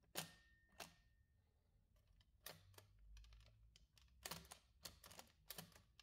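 Faint, irregular clicks and light taps from handling the open plastic body and lever mechanism of a 1950s VEB Optima Bambino typewriter, with a small cluster of clicks a little after the middle.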